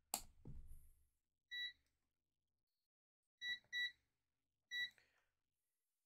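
AstroAI DT132A digital multimeter beeping as its rotary dial is turned: four short, high beeps, one, then a quick pair, then one more, after a few soft handling clicks at the start.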